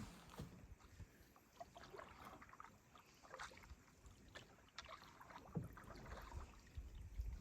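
Faint sounds of a canoe being paddled in calm water: irregular small splashes and drips from the paddle.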